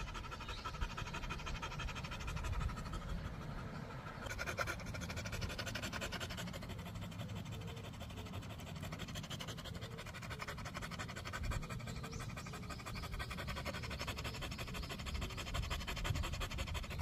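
A dog panting steadily with its mouth open, under background music.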